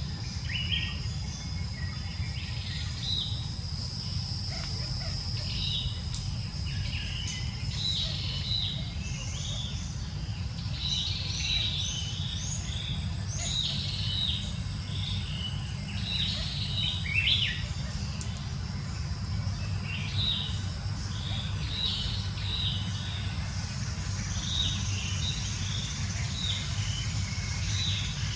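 Birds chirping and calling, many short high notes repeated all through, over a steady high-pitched insect drone and a constant low rumble.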